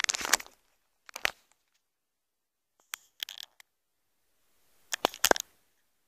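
Short bursts of clattering and knocking as tools and gear are handled among metal tools: one at the start, one about a second in, one around three seconds in, and one near the end.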